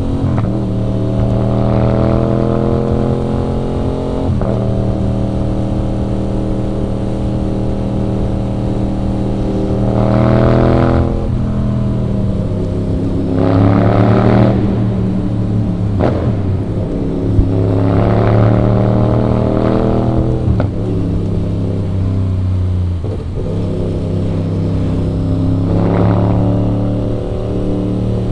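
Aprilia RS 660's parallel-twin engine under way, the engine note rising sharply several times under hard acceleration and dropping abruptly at gear changes, between stretches of steady running.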